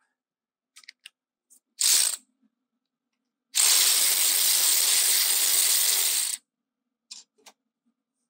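Impact wrench with an 18mm socket undoing a tight brake caliper carrier bolt: a short blip about two seconds in, then a steady rattling run of about three seconds as the bolt breaks loose. A few faint clicks of tool handling follow.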